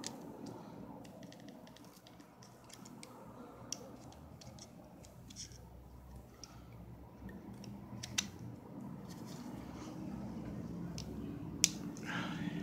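Scattered small metallic clicks and snaps of multitool pliers being worked by hand to pull a needle and thread through a sheath, with the sharpest click near the end.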